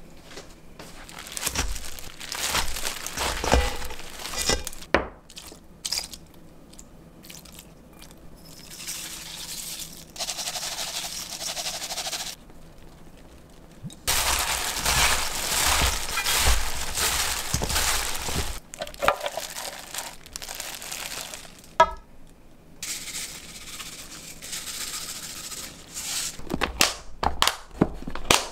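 Kitchen food-prep sounds: a large bowl of salted napa cabbage being handled and mixed with seasonings, in noisy rustling stretches that change every few seconds. Several sharp clicks near the end as plastic food-container lids are snapped shut.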